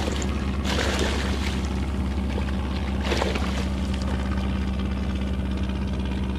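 Hooked fluke (summer flounder) thrashing at the water's surface beside a kayak as it is brought to the net, with two bursts of splashing, about a second in and again about three seconds in, over a steady low rumble.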